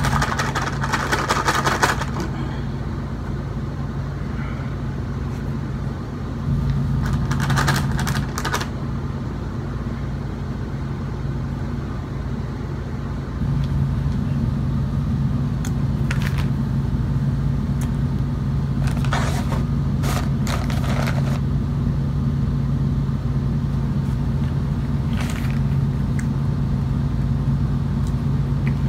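A plastic bag of cornstarch crinkling in a few short bursts as it is tipped up and handled, over a steady low hum.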